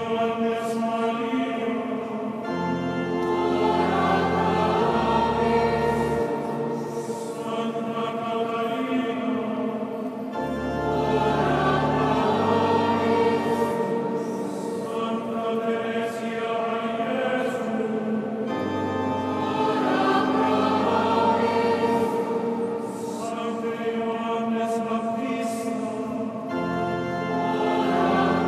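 Choir singing sacred music with organ, in long sustained phrases, with deep bass notes coming in and dropping out every few seconds.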